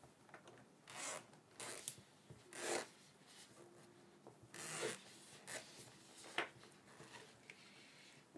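Zip on a small zippered hard-shell lens case being pulled in several short rasps, with light rubbing and handling of the case between them.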